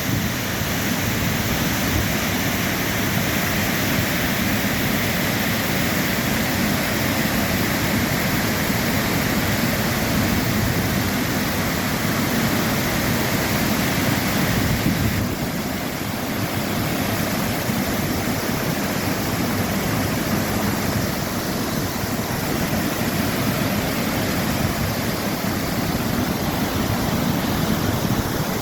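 Waterfall: a steady rush of falling water. About halfway through, the hiss in the upper range eases a little.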